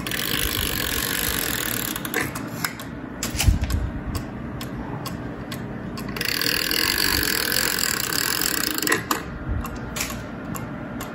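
Chain of a German mechanical cuckoo clock being pulled over its sprocket wheel to wind up a pinecone-shaped weight, rattling and ratcheting in two long pulls, the first at the start and the second from about six seconds in. Between and after the pulls come separate clicks, the clock ticking.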